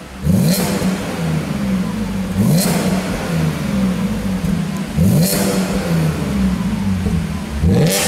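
Audi S4 B8's 3.0 supercharged V6 idling through a Capristo valved exhaust set to cruise mode, blipped four times from idle about every two and a half seconds. Each rev rises sharply and drops straight back to idle.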